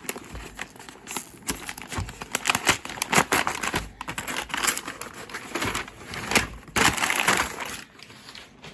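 Keyboard packaging being handled, with crinkling and rustling and scattered light taps and knocks.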